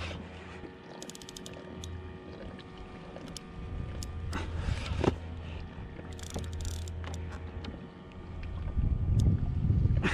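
Sea water lapping against a plastic sit-on-top kayak, with scattered small clicks and knocks of fishing rod and reel handling, and a low rumble of wind on the microphone near the end.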